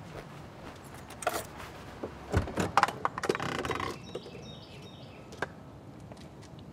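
Keys jangling and small things clattering and rustling inside a car, ending in a short burst of rustling. Then a quieter outdoor background with faint bird chirps and a single sharp click.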